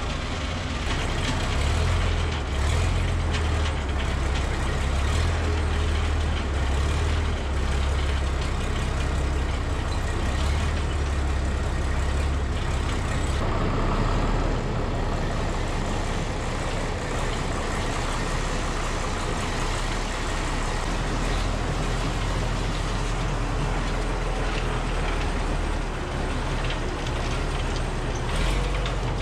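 John Deere tractor engine running steadily as it drives a Patz vertical TMR feed mixer, whose side conveyor is discharging feed into the bunk. The sound is a continuous low engine drone mixed with steady machine and feed noise.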